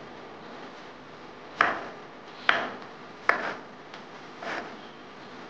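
Kitchen knife slicing through white button mushrooms and striking a wooden cutting board: four cuts about a second apart, the last one softer.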